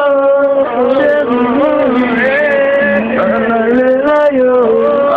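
Singing, with long held notes that slide and step between pitches.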